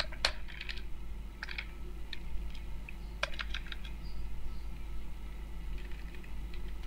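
Computer keyboard keys clicking in short runs of typing, a few keystrokes at a time with pauses between, over a steady low hum.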